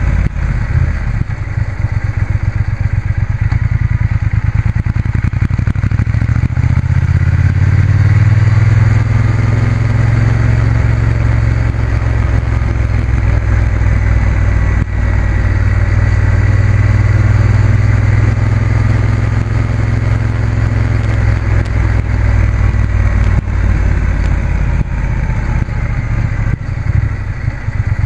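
Motorcycle engine running steadily at low road speed, with rushing wind and road noise.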